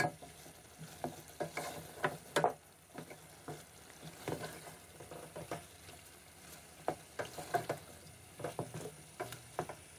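Beef pieces and spice masala frying in oil in a metal pot while being stirred with a wooden spoon: a quiet sizzle under irregular scrapes and knocks of the spoon against the pot, one or two a second. This is the bhuna stage, the spices being fried into the meat.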